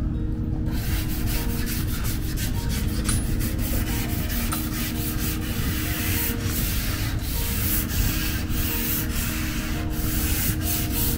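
Sandpaper rubbed by hand in quick back-and-forth strokes over a body-filler repair on a Honda Beat's steel rear quarter panel. It starts about a second in. The sanding is meant to show up the high and low spots in the repair.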